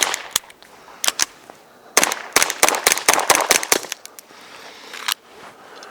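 GSG 1911 .22 Long Rifle pistol with a Banish 22 suppressor firing: a few single shots, then a quick string of shots about two seconds in, and a last shot near the end.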